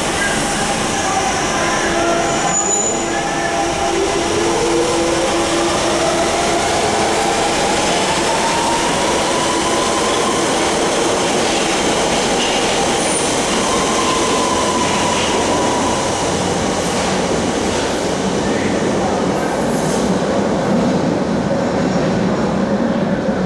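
London Underground 1992 Tube Stock train pulling out of a tube platform: the traction motor whine rises steadily in pitch for several seconds as it picks up speed, over the loud rumble and squeal of steel wheels on the rails, which carries on as the train runs into the tunnel.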